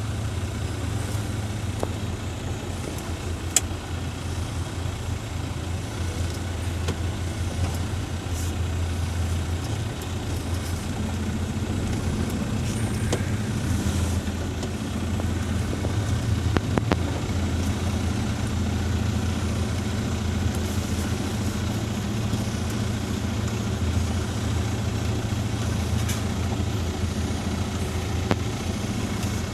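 Heavy snow-clearing machine's engine running steadily with a low drone, broken by a few sharp clanks, the clearest about three and a half seconds in.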